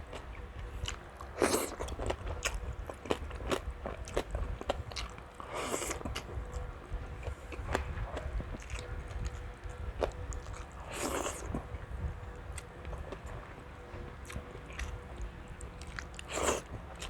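Close-up eating sounds of crispy deep-fried pork belly (lechon kawali): steady wet chewing with small clicks, broken by four louder crunching bites into the crisp crackling skin.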